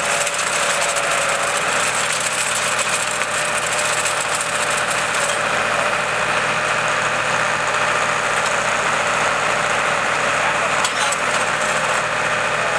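Farm tractor engine running steadily, powering a rear-mounted post-hole auger that bores into the ground.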